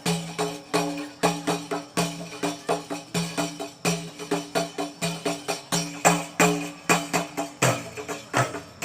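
Qasidah percussion passage: frame drums and tambourine playing a fast, even rhythm of about three to four strokes a second, with deep pitched drum strokes and no singing.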